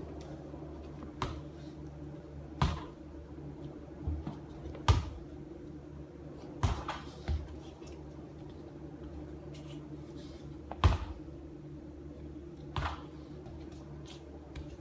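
Scattered sharp thumps and taps, about eight in all at irregular intervals, from a soccer ball being kicked and bounced while a dog chases it, over a steady low hum.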